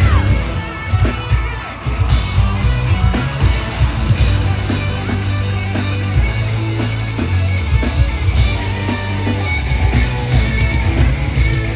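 Loud live concert music over a festival sound system, heard from within the crowd: heavy pulsing bass with electric guitar in the mix.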